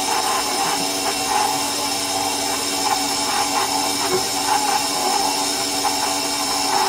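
KitchenAid stand mixer running steadily, its motor humming with a steady whine as the flat beater creams butter and sugar in the steel bowl.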